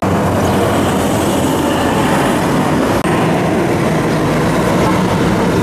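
Steady loud outdoor rumble with no distinct events. It breaks off for an instant about halfway through.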